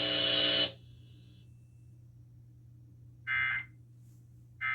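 Emergency Alert System end-of-message data tones. A steady multi-tone sound cuts off under a second in, and after a pause come two short digital data bursts about a second and a half apart, the second right at the end. These bursts mark the end of the test alert.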